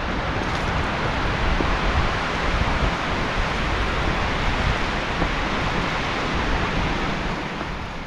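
Wind blowing through forest trees: a steady, even rustle that fades away near the end.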